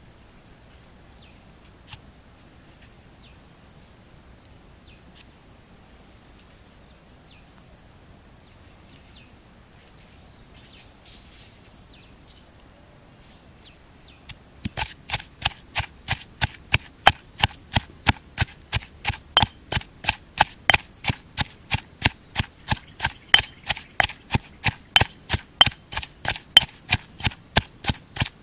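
Stone mortar and pestle pounding chillies and tomato: sharp, even strikes about three a second, starting about halfway through. Before that, a steady high insect drone with faint chirps.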